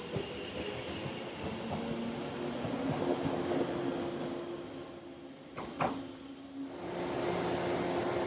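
Electric train running along a station platform. About five and a half seconds in, the sound changes abruptly to a train standing at the platform with a steady electric hum.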